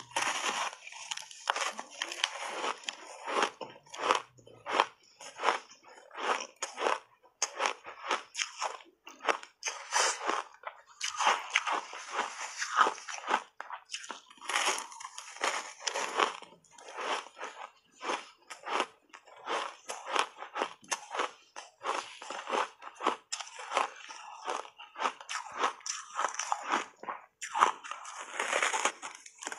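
Close-miked crunching and chewing of a block of refrozen ice coated thickly in matcha powder, bitten off in big bites: a rapid, irregular run of sharp cracks and crunches with short pauses between bites.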